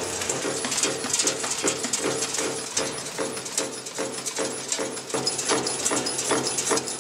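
Automatic stamping and bending machine running, a steady clatter of press and tool strokes about three a second over a constant mechanical hum.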